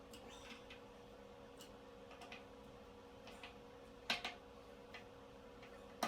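Faint clicks and light metal taps of bolts and fittings being handled while an accessory rail is fastened to a table saw fence. There is a sharper double click about four seconds in and another right at the end, over a low steady hum.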